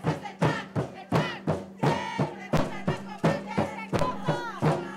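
Music with a fast, steady beat of about three hits a second and a melody over it.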